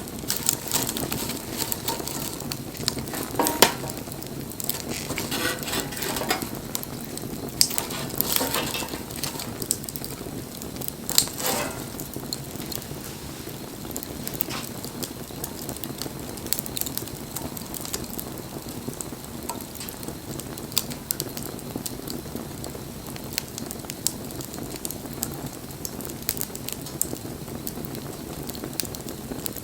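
Wood campfire crackling steadily, with a stream of small pops, a few louder pops and short spells of hissing in the first half.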